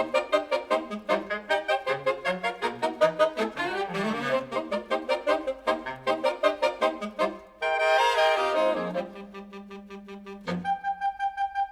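Music played back through DALI bookshelf loudspeakers and picked up by room microphones: a quick run of pitched notes at about four or five a second, then longer held notes from about 8 seconds in.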